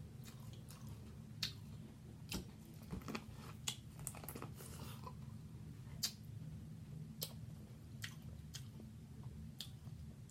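A person chewing and biting food close to the microphone, with short sharp mouth clicks scattered through, over a steady low hum.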